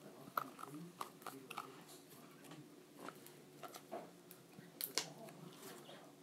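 Plastic Elmer's School Glue bottle being squeezed by hand as glue is pressed out, giving scattered small clicks and crackles. The sharpest clicks come about half a second in and about five seconds in.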